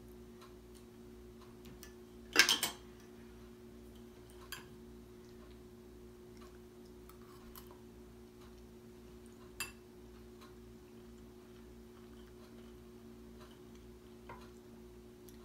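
A spoon clinking against bowls as porridge is served and eaten. There is one loud clatter of a few quick knocks about two and a half seconds in, then a few light single taps, over a steady faint hum.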